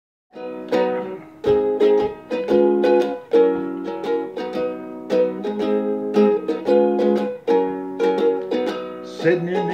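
Ukulele strumming chords in a steady rhythm, the instrumental intro of a song.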